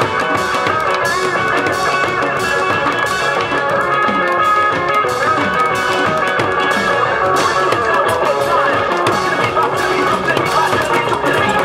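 Loud music with a fast, driving beat: Korean barrel drums and mounted cymbals struck hard with sticks over a backing track.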